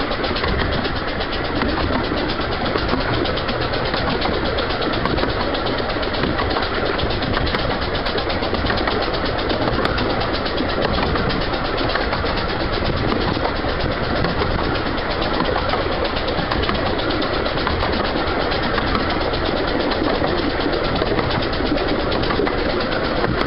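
Steady running noise of a 15-inch gauge train heard from a carriage: wheels on the rails and the 2-6-4T steam locomotive working ahead.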